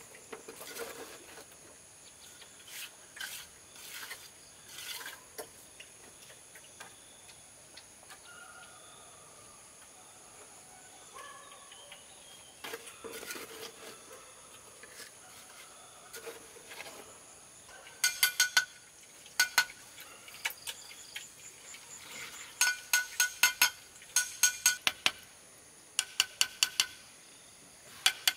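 Steel mason's trowel scraping and tapping on stones and cement mortar as stones are laid in a wall. Scattered knocks at first, then from about two-thirds of the way in, quick runs of sharp metallic clinks, several at a time. Insects drone steadily and high-pitched underneath.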